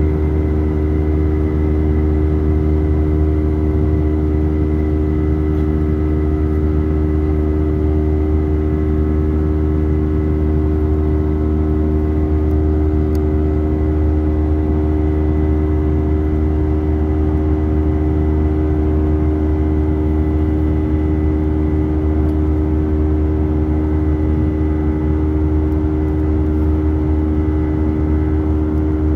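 Airbus A319 jet engines heard from inside the passenger cabin: a steady, loud drone of low rumble and constant hum tones, with no change in pitch or level.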